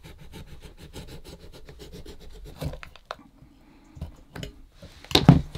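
A sharp knife cutting through the stitched seam between a leather boot upper and its sole: a rapid run of short scratching strokes, about ten a second, for the first three seconds, then fainter scraping. A louder knock comes near the end.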